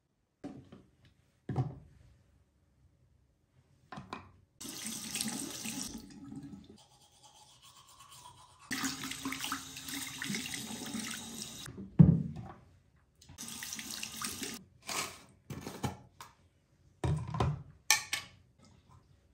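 Bathroom basin tap running in three separate stretches, water splashing over hands being washed under it. Short knocks and clatter fall between the stretches, with one sharp thump about two-thirds of the way through.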